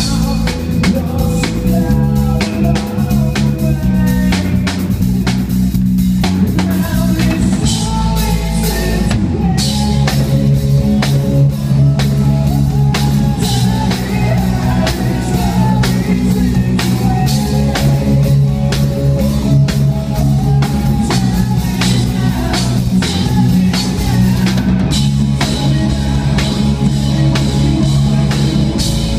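Rock band playing live: electric guitars and bass over a drum kit, at a steady loud level.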